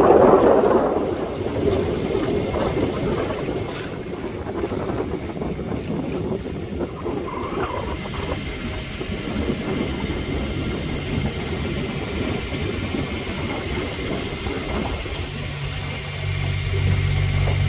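Motorboat under way, with wind on the microphone and water noise. In the last couple of seconds the engine's steady low drone comes up plainly.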